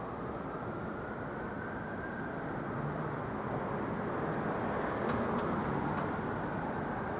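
Steady street traffic noise, a wash of passing vehicles that slowly grows louder, with a few short sharp clicks about five to six seconds in.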